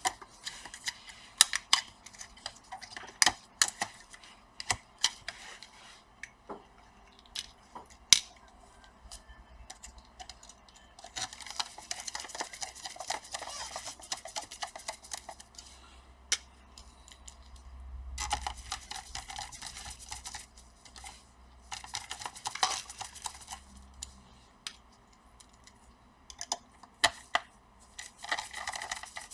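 Scattered clicks and taps of small metal and plastic parts, with a few short stretches of scraping, as a laptop's hard drive is fitted back and screwed into place by hand.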